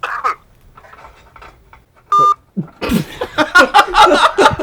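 A phone on speakerphone gives a single short electronic beep about two seconds in as the call ends. People then break into loud laughter.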